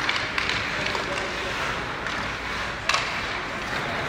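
Ice hockey game noise: a steady haze of spectator voices and rink sounds, with sharp knocks near the start and about three seconds in.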